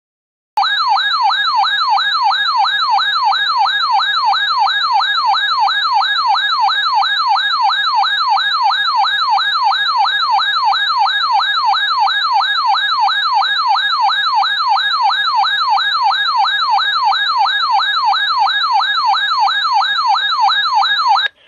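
Radio Shack 12-519 weather alert radio sounding its loud electronic siren alarm, a tone warbling up and down about twice a second. It stops abruptly near the end. The siren signals a received weather warning, here a blizzard warning.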